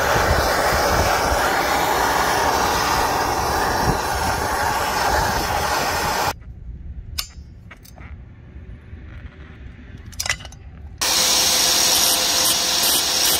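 A hand-held gas torch hissing steadily as its flame heats a broken bolt on a truck air dryer housing. It stops about six seconds in, a few light metal clicks follow, and about eleven seconds in an angle grinder starts grinding on the metal.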